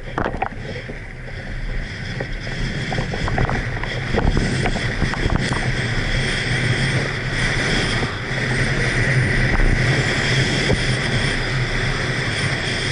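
Tandem downhill mountain bike running fast over a dirt course: steady wind rush on the camera mic with the tyres rumbling and the bike rattling over bumps. It grows a little louder about four seconds in.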